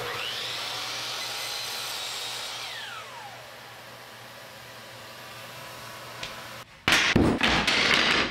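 A sliding compound miter saw spins up with a rising whine and cuts small plywood drawer sides, then winds down with a falling whine, over the steady rushing hiss of dust extraction. Near the end comes a louder clatter of the small plywood pieces being handled on a bench.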